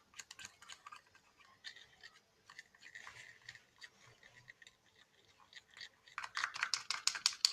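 Slime being handled and stirred: scattered soft sticky clicks and scrapes, turning into fast, rapid stirring about six seconds in.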